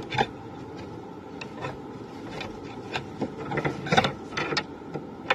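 Cloth rustling and scraping close to the microphone, with scattered light clicks and knocks over a steady background hiss. The clicks bunch together most densely about four seconds in.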